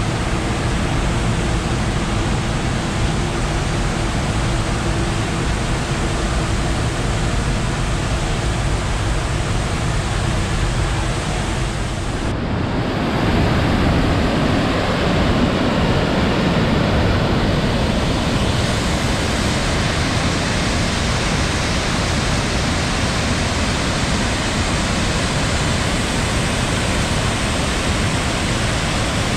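Steady rushing of the Saltos del Monday, a large waterfall about 70 metres wide. A faint steady hum runs under it for roughly the first twelve seconds, when the sound changes abruptly and the rush grows fuller.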